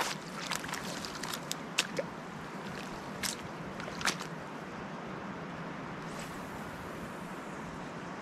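Shallow lake water lapping at the shore, a steady soft wash, with a scatter of sharp clicks in the first four seconds.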